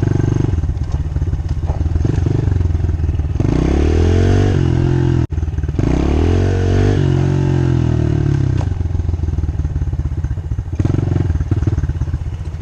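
2018 Honda CRF110's small single-cylinder four-stroke engine running under way as the bike is ridden. In the middle its pitch rises as it revs up, drops at a gear change and rises again, with a brief sharp cut-out about five seconds in.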